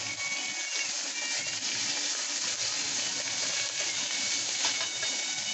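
Thin strips of skirt steak sizzling steadily in hot olive oil in a wok, being moved around in the pan by hand near the end.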